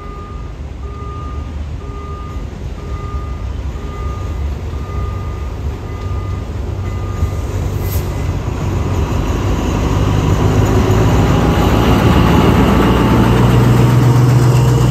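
A level-crossing warning signal beeps in an even two-tone pulse, then stops about halfway through. A diesel-electric locomotive, an Alstom (SRT No. 4145) heading a freight train, approaches and grows steadily louder, its engine drone building.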